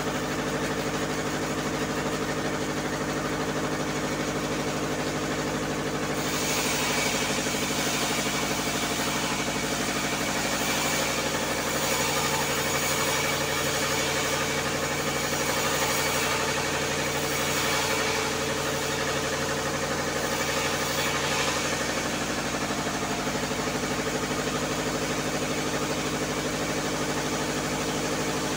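Bandsaw mill running with a steady machine drone. From about six seconds in, the blade cuts through a log, adding a noisy rasp that swells and fades several times.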